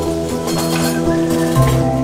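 Ambient background music with held chords; the bass note shifts about one and a half seconds in.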